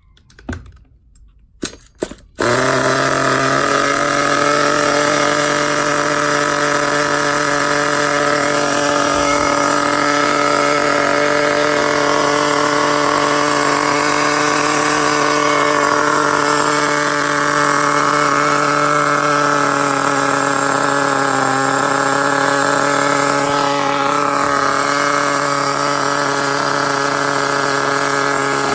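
Small nitro glow-fuel engine of an RC car: a few brief sputters in the first two seconds, then it catches and runs steadily at a fast idle. The engine is freshly set up with a new glow plug.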